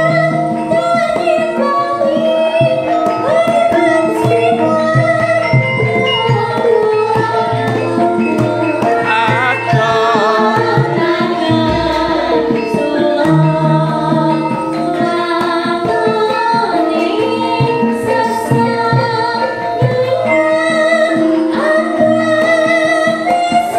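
Javanese gamelan music in pelog barang: bronze gongs and kettle-gong and metallophone tones ringing in steady, interlocking notes with a drum. A female singer (sindhen) sings a gliding melody over it through a microphone.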